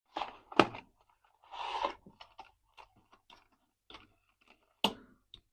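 Hard plastic action-figure toys, a He-Man figure on the Stridor war horse, being handled: a string of small clicks and taps, with a sharp click about half a second in and another near the end, and a brief rustle around one and a half seconds.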